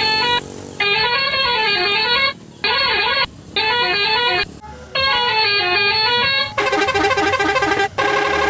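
Electronic telolet melody horn of an odong-odong kiddie train playing a rising-and-falling tune in four short phrases with brief breaks between them. About two-thirds through, a different, buzzier electronic tune takes over.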